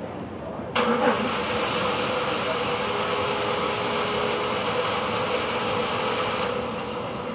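A car engine starts about a second in and runs steadily; its higher hiss drops away suddenly near the end, leaving a quieter running sound.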